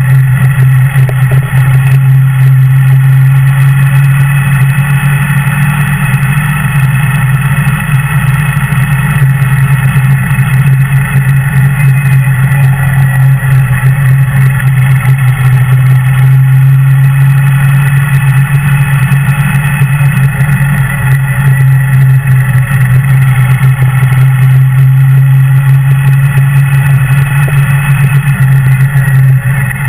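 Kawasaki W800's air-cooled parallel-twin engine running steadily at an unchanging pitch under light throttle, heard close up from the bike itself.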